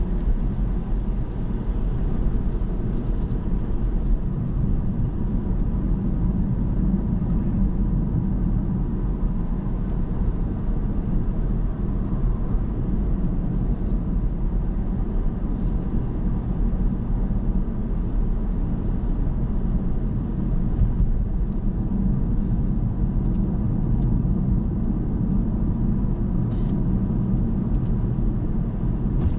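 A car driving at steady speed: a continuous low hum of engine and tyre noise, with a few faint ticks.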